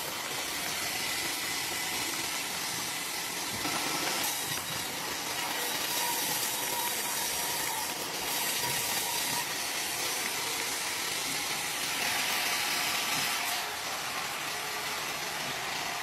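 Wood-Mizer WM4500 industrial band sawmill running: a steady, noisy hiss of machinery that swells and eases a few times.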